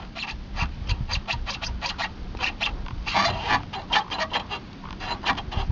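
Hand work on a car's air-suspension compressor mount: a rapid run of short clicks and scrapes of metal and rubber parts being handled, with a denser scrape about three seconds in.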